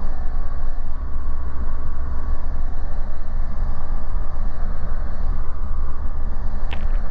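Diamond DA40's piston engine and propeller running steadily, heard from inside the cockpit, with one short click near the end.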